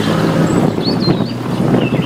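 Wooden toy vehicles rolling and clattering along a wooden track over a steady low hum, with birds chirping briefly about a second in and again near the end.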